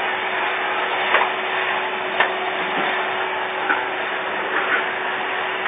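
Vacuum cleaner running steadily, with a few short knocks along the way.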